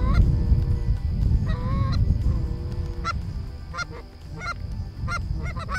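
Canada geese honking: a couple of drawn-out calls, then quicker short honks from about halfway in, over a steady low rumble.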